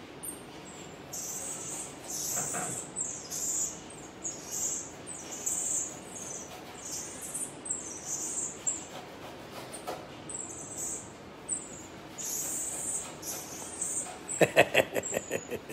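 Marmoset monkey making a steady run of short, high-pitched chirping calls, roughly one or two a second. Near the end comes a quick rattle of knocks, the loudest sound.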